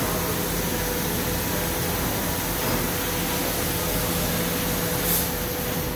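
Steady hum of running industrial machinery: an even noise carrying a constant low hum and a steady mid-pitched tone. A short hiss of air comes about five seconds in.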